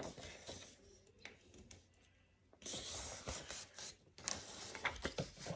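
A sheet of craft paper being handled, rubbed and pressed against a wooden tabletop. There is a denser rustle about two and a half seconds in, then scattered small taps and rubs.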